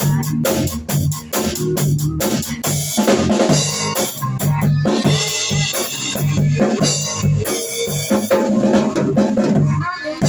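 Hard rock recording with a busy drum kit, snare and bass drum hits, over a repeating bass line and guitar.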